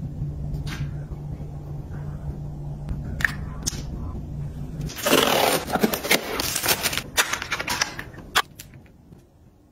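Hands handling skincare packaging on a desk: a few light clicks and taps, then a loud burst of crinkly rustling about five seconds in, followed by more quick taps. A steady low hum runs under the first half.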